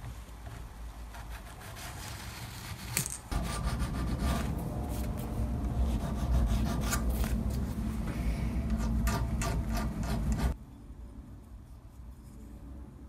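A metal part being rubbed down by hand with abrasive paper, a scratchy back-and-forth rubbing. It is soft for the first few seconds, louder and steadier from about three seconds in, and stops abruptly about ten seconds in.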